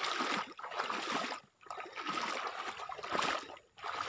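Water sloshing and splashing around a person's legs as he wades knee-deep through muddy swamp water, in surges with each stride and brief pauses between them.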